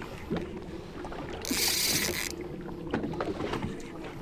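Boat at sea: a steady low rumble of hull and water, with a short hissing rush of under a second about one and a half seconds in.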